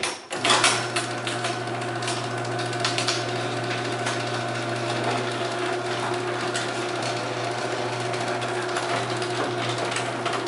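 LiftMaster 1/3 hp chain-drive garage door opener starting up after a few clicks, then running steadily as its motor and chain haul the door up. Its open force is now just high enough to lift the door.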